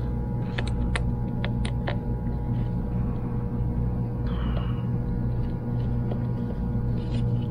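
Steady low electrical hum of a large transformer, a mains-frequency drone with several overtones. A few light clicks and a soft rustle from handling small parts come over it, the clicks within the first two seconds.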